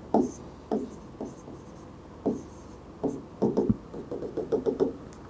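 Pen writing on an interactive whiteboard screen: a series of short separate strokes and taps, coming quicker near the end, as a question is written out.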